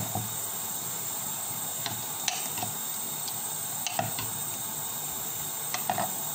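A few light clicks and taps of a knife and green chillies against a plate as the chillies are handled and slit open, over a steady hiss.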